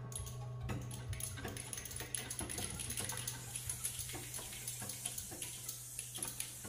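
New-music ensemble playing a scattered texture of irregular clicks and taps, extended playing techniques, over a low held tone.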